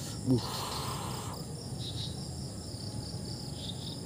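Insects chirping in a steady, high, pulsing chorus. About a quarter second in there is a brief loud sound, followed by about a second of rustling as the fish is handled.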